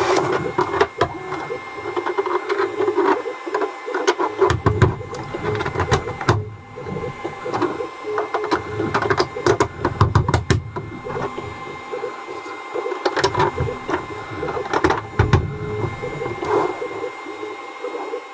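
3D printer stepper motors whirring in shifting pitches, with frequent sharp clicks and knocks of hard plastic parts being handled.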